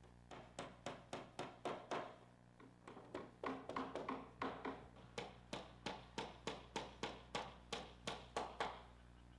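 Hand tool working wood in a steady rhythm, about three strokes a second: a short run of about six, a pause of about a second, then a longer run of about sixteen.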